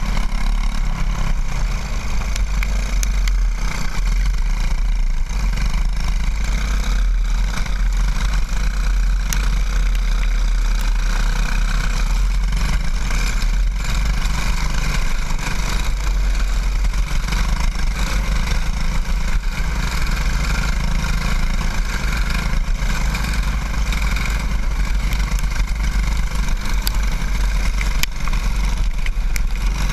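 Racing go-kart's small single-cylinder engine running hard at race speed, heard from on board, with a constant low rumble underneath.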